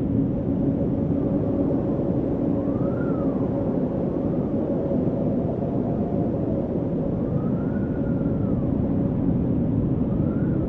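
Steady roar of blowing air with a low, even drone under it, and a faint tone that rises and falls about four times.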